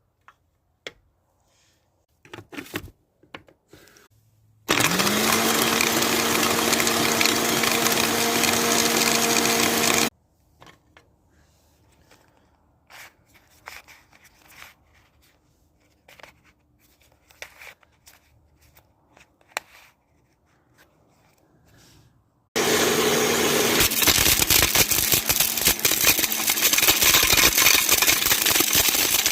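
Blender motor spinning up and running for about five seconds with a Rubik's cube inside, then cutting off. After a pause with scattered small clicks and handling, it starts again near the end, this time with rapid clattering as the plastic pieces are thrown around the jar.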